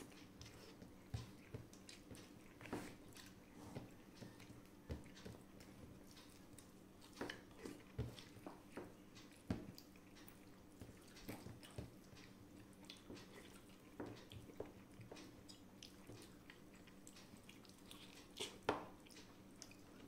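Quiet eating by hand from a steel plate: a person chewing and mixing rice with his fingers, with scattered small clicks and smacks. A faint steady hum runs underneath.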